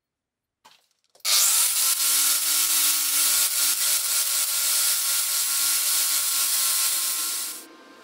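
Angle grinder switched on about a second in, spinning up and running with a steady whine under a harsh grinding noise as a copper soldering-iron tip is ground against its disc. The grinding noise stops abruptly near the end.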